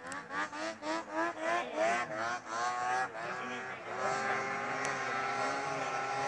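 Snowmobile engine racing across open water, its revs surging up and dropping back about three times a second, then held at a steady high pitch from about four seconds in.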